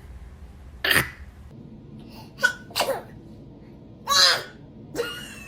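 A baby sneezing several times in short, sudden bursts, the longest sneeze about four seconds in.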